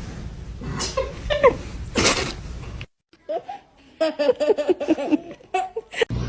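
A person laughing in a quick run of short bursts in the second half, after a noisy stretch with a few brief vocal glides.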